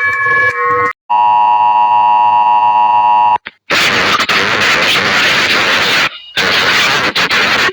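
Electronic warning signal: a steady buzzing tone for about two seconds, then two stretches of loud hissing noise, each starting and stopping abruptly.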